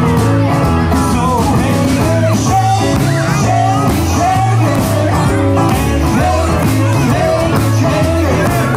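Live rock and roll band playing, with bass and drums driving a steady beat, while men sing lead vocals.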